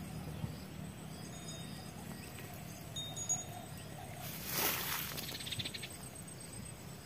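Outdoor field ambience with faint thin high calls and a steady low hum, and a brief swoosh of rustling or wind on the microphone about four and a half seconds in.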